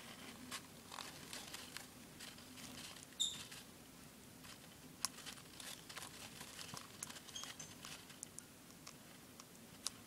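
Faint clicking and soft rustling as a one-month-old baby bird is fed from a syringe on a paper towel. A brief high squeak stands out about three seconds in, with a couple of fainter short squeaks later.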